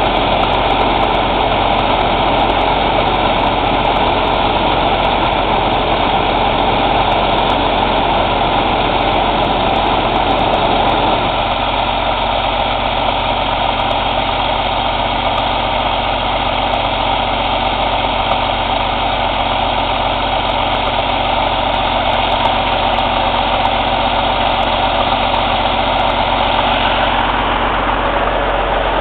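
Cummins ISX CM2250 inline-six diesel engine running steadily at idle during a DPF regeneration. About 11 seconds in, the deeper part of the sound drops a little, and the engine then runs on evenly.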